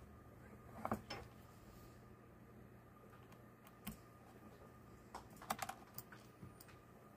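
Scattered light clicks and taps of small parts being handled and fitted into a Raspberry Pi 5 case frame. There is a short cluster about a second in, a single click near four seconds and a few more around five and a half seconds, over faint room tone.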